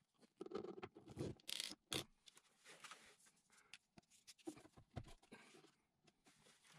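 Faint scattered scraping and clicking of PEX tubing and a metal crimp ring being handled and pushed onto a shower valve rough-in box's brass barbed inlet fittings, heaviest in two short spells.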